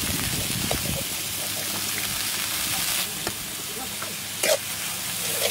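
Curry sizzling steadily in a wok over a charcoal fire, with a few light clinks of the metal spatula against the pan, the loudest about four and a half seconds in.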